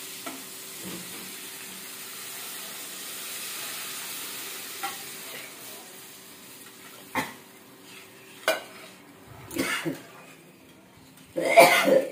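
Water poured into a hot steel kadai of spice-fried potatoes, with a steady sizzle that dies away, then a metal spatula stirring the gravy and striking the pan in a few separate strokes, with a louder burst near the end.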